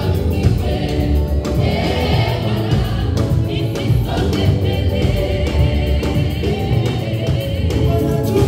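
Gospel choir singing together with a live band, a drum kit keeping the beat under the voices.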